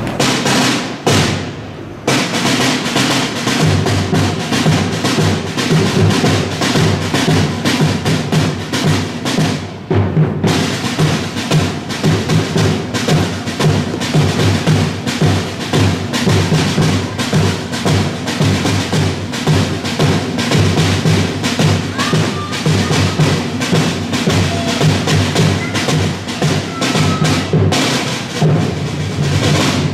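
Drums, snare and bass, beating a steady rhythm, with a brief break about ten seconds in.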